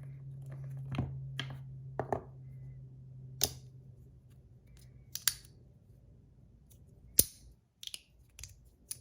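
Magnetic fidget slider clicking as its plates are slid and snap into place under strong magnets: about ten sharp clicks at uneven intervals. A low steady hum underneath fades out about two-thirds of the way through.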